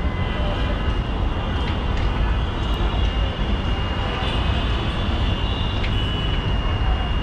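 Steady rumble of city road traffic with a thin, high-pitched steady whine above it.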